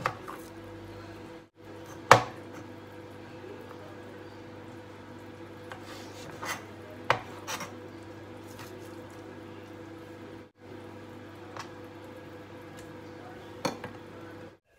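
A few sharp, separate knocks of a kitchen knife and raw mutton chops on a plastic cutting board as the fat is trimmed off, the loudest about two seconds in, over a steady low hum.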